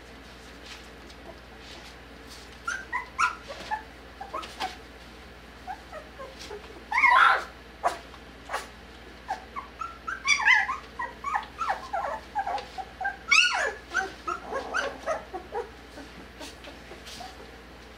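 Litter of four-week-old puppies yipping and whimpering as they play, a string of short, squeaky cries that starts a couple of seconds in, with a few louder squeals in the middle.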